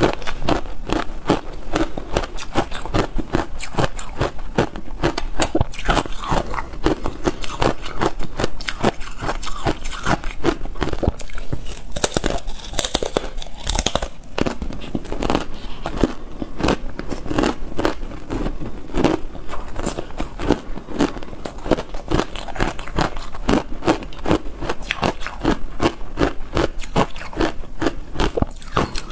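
Thin slabs of ice coated in matcha powder being bitten and chewed close to the microphone: a dense, steady run of sharp crunches and crackles.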